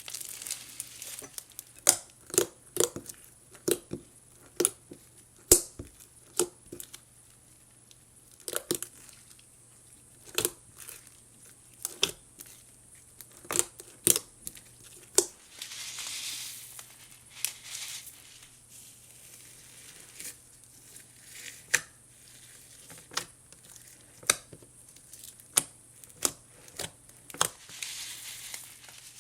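Clear-glue slime being mixed and worked with borax activator: irregular sticky clicks and pops, with two short hissing spells about 16 and 28 seconds in.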